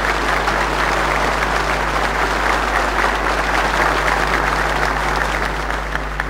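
A large audience in a hall applauding, a dense steady clapping that thins to a few separate claps near the end.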